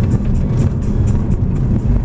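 Car driving on a gravel road, heard from inside: a steady low rumble of the car and its tyres on the loose surface, with scattered sharp ticks.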